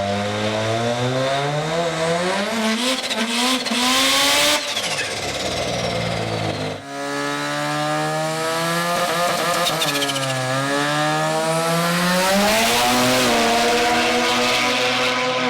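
Drag-racing street cars at full throttle down the strip, engine notes climbing steadily through the revs with a burst of hiss about four seconds in. The sound breaks off abruptly about seven seconds in, and another run follows whose engine pitch drops at a gear change around ten seconds in and climbs again.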